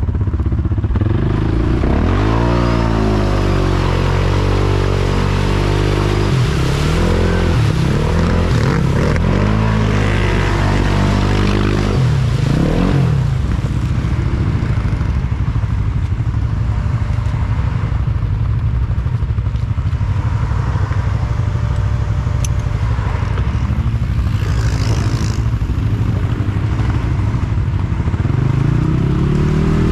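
ATV engines revving up and down again and again, straining in deep mud while one quad pulls another out on a tow rope. The revving settles to a steadier drone midway and rises again near the end.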